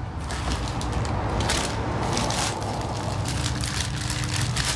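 Clear plastic bag crinkling and rustling as it is handled, over a low steady hum.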